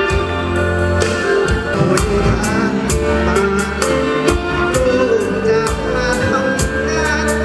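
Instrumental music with a steady beat: held melody notes over a bass line and regular percussion strokes, with no voice.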